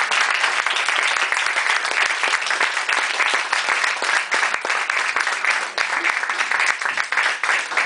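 Audience applauding: a dense patter of many hands clapping together.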